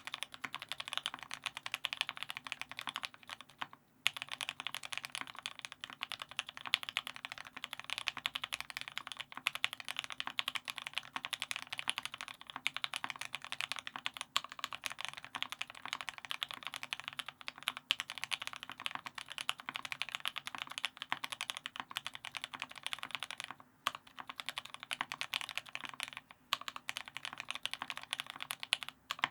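Fast continuous typing on a custom mechanical keyboard with an aluminium plate, lubed Tealios V2 linear switches with Cherry top housings, and GMK keycaps: a dense run of keystroke clacks with brief pauses about four seconds in and near the end.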